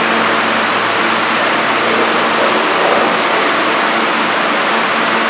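Steady rushing noise from an R160 subway car standing at the platform, its ventilation and on-board equipment running, with a faint low hum underneath.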